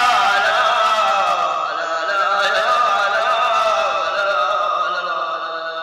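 Traditional folk singing from the Umluj area on the soundtrack: voices holding a long, wavering melody.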